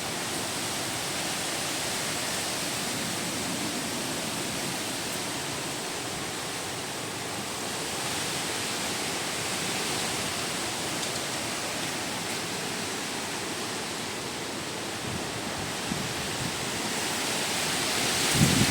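Strong wind giving a steady rushing hiss, swelling near the end as gusts begin to buffet the microphone.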